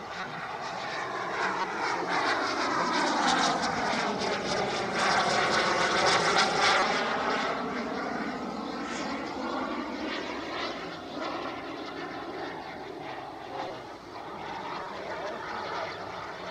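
Radio-controlled model L-39 Albatros jet flying past with a steady jet whine and rush. It swells to its loudest about five to seven seconds in, with a sweeping, phasing sound as it goes by, then fades somewhat as it moves away.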